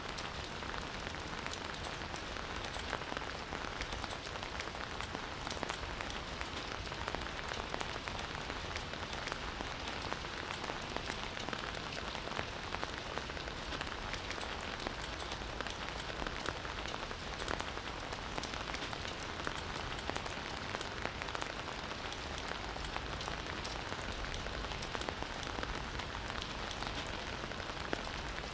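Campfire burning, a steady hiss dotted with many small crackles and pops.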